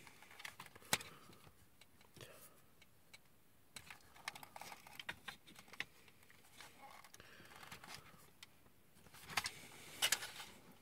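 Hard plastic transforming-robot toy in shuttle mode being handled and turned: faint scattered clicks and taps of its plastic parts, with a cluster of sharper clicks near the end as it is lifted and swung.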